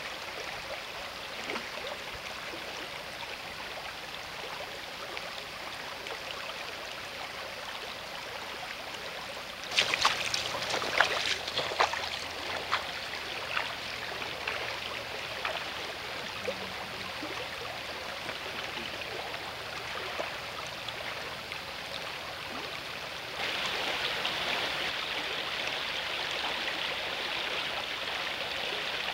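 Shallow river rushing and burbling over a stony riffle close to the microphone. About a third of the way in comes a short flurry of sharp splashes and clicks, and near the end the water sound steps up to a louder, brighter rush.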